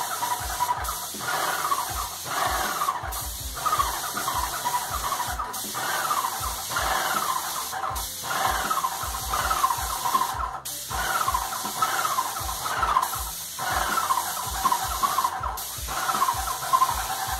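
Graco Magnum LTS 15 electric airless paint sprayer working while its gun sprays paint: a steady hiss from the spray tip, quick low thumps about three a second from the piston pump, and a repeated falling squeal, broken by short gaps every couple of seconds.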